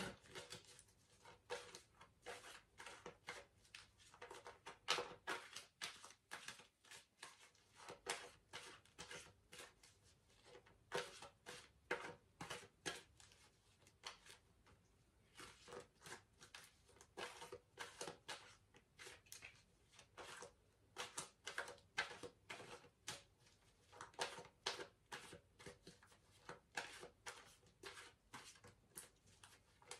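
A tarot deck being shuffled by hand: a long, faint run of quick card flicks and taps coming in uneven clusters, several a second.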